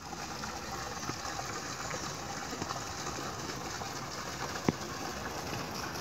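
Steady outdoor background noise with one sharp click about three-quarters of the way through.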